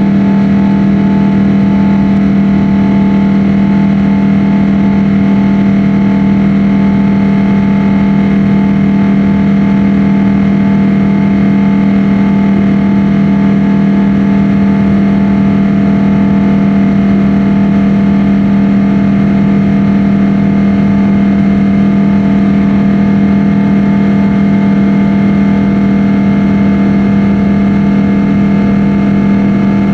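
Jet airliner cabin noise heard from inside: a loud, steady drone of engines and airflow with a strong low hum and no changes.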